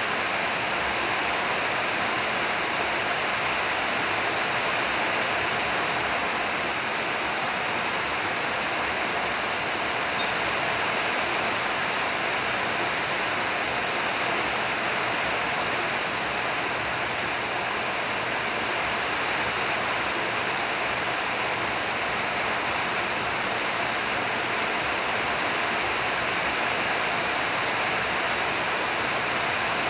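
A steady, even rushing noise that does not change, with one faint tick about ten seconds in.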